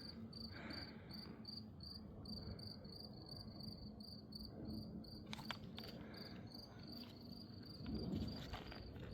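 Faint, high-pitched cricket chirping in an even rhythm, about three chirps a second.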